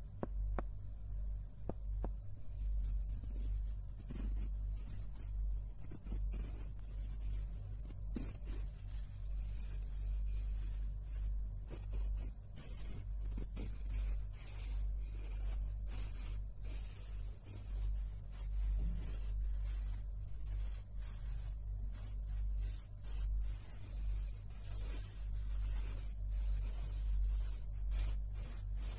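Two pale wooden blocks rubbed and scraped against each other close to the microphone. The scratchy rubbing swells and fades with each stroke, with scattered light clicks, over a steady low hum.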